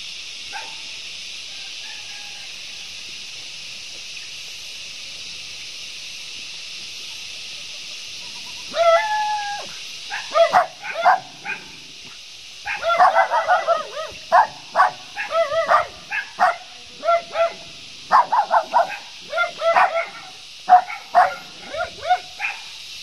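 An animal crying out in short, quick, high-pitched cries, again and again, starting about nine seconds in and going on to the end. Before the cries there is only a steady high hiss.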